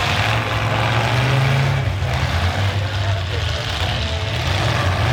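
Demolition derby cars' engines running, a steady low drone that swells slightly about a second in.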